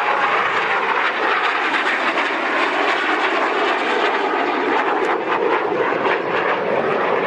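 BAE Hawk jet flying by, its jet engine making a steady, loud rushing roar.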